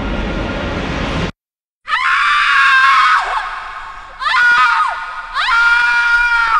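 Synthesized horror drone effect: a dense low drone cuts off abruptly after about a second. After a short silence, shrill scream-like layered tones swell in three times, each sliding up in pitch, holding, then sliding down.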